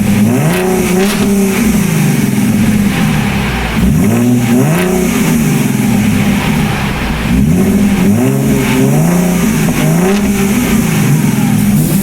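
2017 Ford Mustang's 3.7-litre V6 running through a muffler-deleted exhaust, revving up and falling back again and again.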